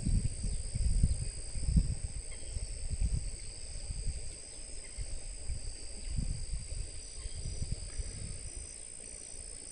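Insects, crickets or similar, chirring steadily in two high-pitched tones beside a flooded river, with irregular low rumbles that are loudest in the first few seconds and die down after.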